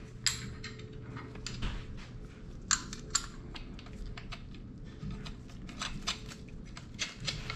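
Scattered light clicks and taps of metal hardware being handled as a truck-style GM alternator is fitted and its bolts started by hand on an LS engine's accessory drive bracket, over a faint steady hum.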